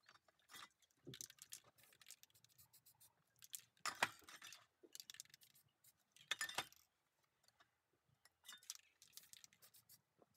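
Spray paint cans clinking and rattling as they are handled, with many light clicks and two brief louder noisy bursts about four and six and a half seconds in.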